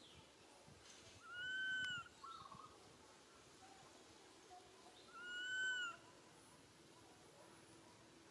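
Young long-tailed macaque giving two drawn-out cries, each under a second long, rising then falling in pitch, about four seconds apart: a juvenile's distress call for its mother.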